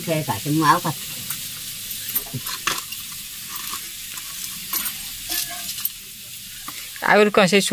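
Wood fire in a clay stove crackling under a wok of heating oil: a steady hiss with scattered sharp crackles and pops.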